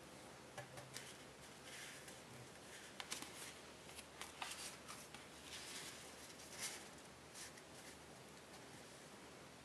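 Tissue foil origami paper crinkling and rustling in the hands as it is folded and creased, in faint, irregular bursts with a few sharper crackles around the middle.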